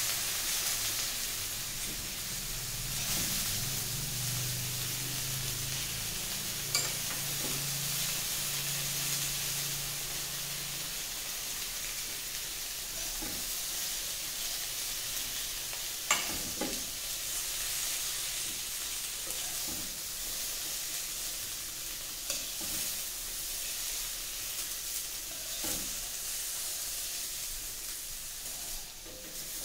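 Cauliflower and potato pieces sizzling in hot mustard oil in a kadhai, a steady frying hiss, while a spoon stirs and scoops them out. A few sharp taps of the spoon against the pan stand out.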